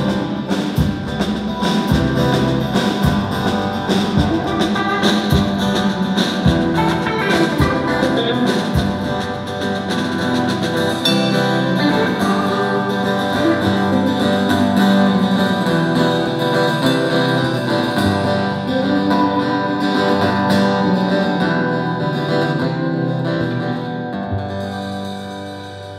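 Instrumental band music: guitar with a drum kit. The drum hits stop about nine seconds in, leaving held guitar chords that fade out near the end.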